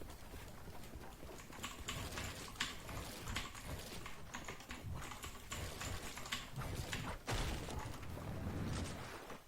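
Typing on a Dierya T68SE 60% mechanical keyboard with red linear switches: a stream of irregular, quick keystroke clacks.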